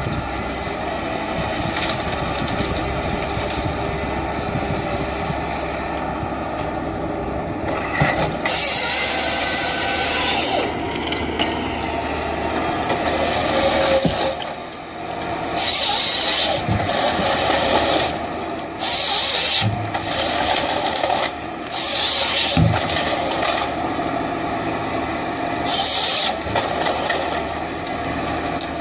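Heavy machinery engine running steadily, with short bursts of hissing several times and a few low knocks.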